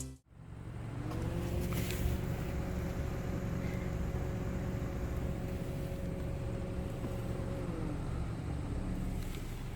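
Steady low rumble of a vehicle running, with a faint steady hum over it from about a second in until about eight seconds in.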